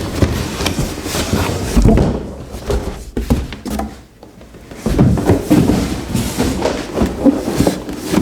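Handling noise: irregular knocks, thumps and rustling, busiest in the first two seconds and again from about five seconds in.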